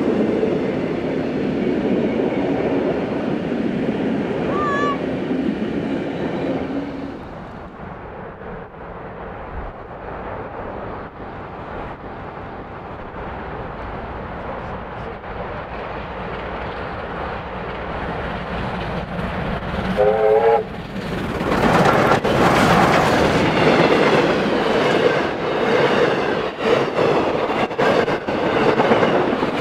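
Carriages of a steam-hauled heritage train roll past on the rails before the sound drops away. Two R-class Hudson steam locomotives then approach, give a short blast on the steam whistle about two-thirds of the way through, and run past loud and close, with their carriages clattering over the rails behind them.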